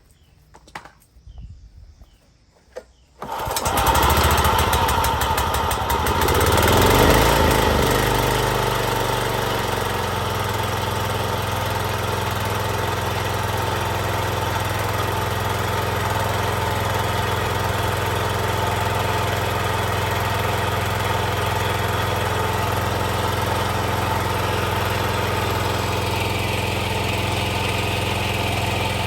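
Scag 36-inch walk-behind mower's engine starting about three seconds in after a few faint knocks. It revs up briefly, then settles into steady running.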